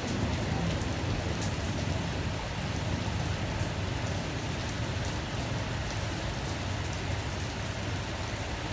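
Steady rain falling on the station platform and canopy, with scattered drips, and a low rumble from a departing passenger train that slowly fades under it.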